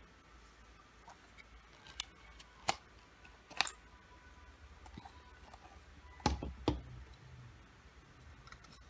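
Packaging being handled during an unboxing: about five sharp clicks and snaps spaced apart, two of them close together about six seconds in.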